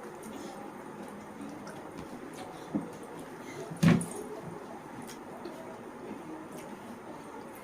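Faint steady background with small clicks, then one sharp knock about four seconds in, a lighter one just before it.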